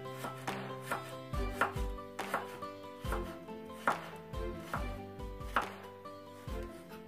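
Kitchen knife slicing a carrot into thin strips on a cutting board, the blade knocking on the board in quick, uneven strokes about twice a second.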